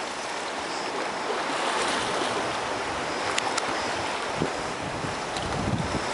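Small sea waves washing and lapping against a rocky shore, with a couple of faint clicks midway and low gusts of wind on the microphone near the end.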